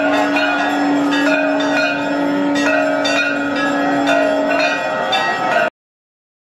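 Temple bells rung steadily during aarti, about two strikes a second, each left ringing, over a steady held tone. The sound cuts off suddenly near the end.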